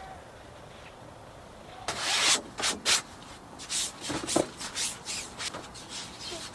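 Rough scraping and rubbing strokes, irregular and short, starting about two seconds in.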